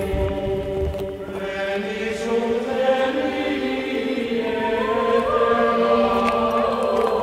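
Background music of slow, sustained chords that shift gradually, with a higher held note coming in about five seconds in.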